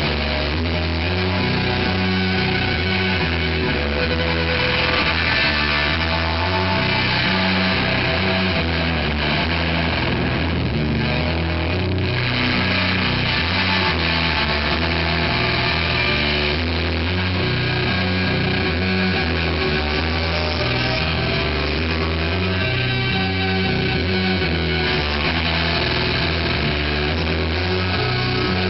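Loud live instrumental rock: electric guitar and bass with drums, playing a repeating low riff.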